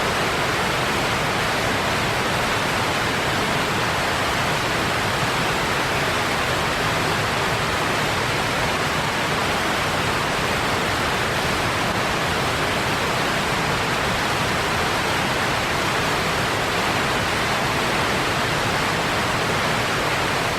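Wheat grain pouring steadily into a silo: a continuous, even rushing hiss with no breaks.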